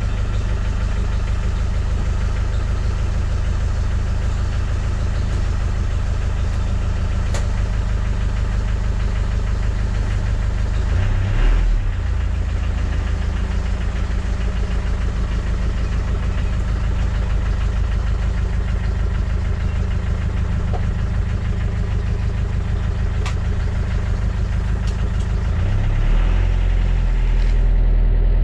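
Land Rover Discovery 1 engine idling steadily, heard from inside the cabin. It gives a short rise in revs about eleven seconds in and grows a little louder near the end.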